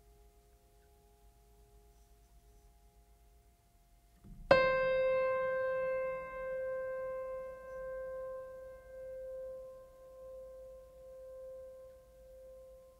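Background music: a single struck note about four and a half seconds in, ringing on and slowly fading with a gentle wobble in loudness.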